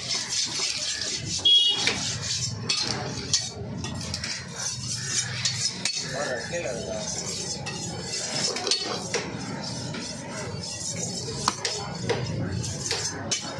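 A large fish-cutting knife slicing and scraping along the backbone of a paarai (trevally) on a wooden chopping block, with scattered clicks of the blade, as a fillet is cut free.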